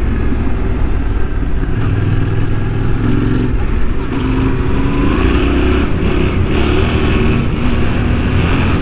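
Yamaha Ténéré 700's parallel-twin engine running under way, with wind and road noise, heard from the riding bike. The engine note climbs about halfway through as the bike accelerates.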